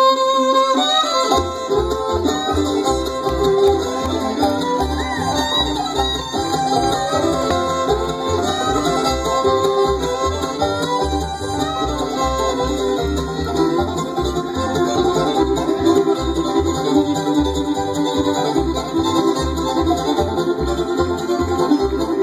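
Live acoustic bluegrass band playing an instrumental passage: banjo, acoustic guitars and fiddle over an upright bass. A held note opens it, and the bass and a busy picked rhythm come in about a second in.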